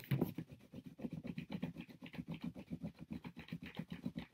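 A crayon rubbed hard back and forth across paper laid over a cardboard cutout: a steady run of quick scratching strokes.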